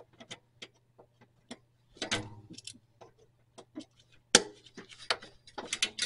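Needle-nose locking pliers working on parking brake cable and spring hardware: scattered small metallic clicks and taps, with a sharper knock about four and a half seconds in.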